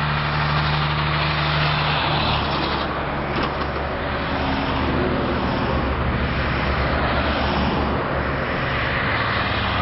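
Highway traffic going past close by: a tractor-trailer truck with a low engine drone in the first couple of seconds, then cars, over a steady rush of tyre and road noise.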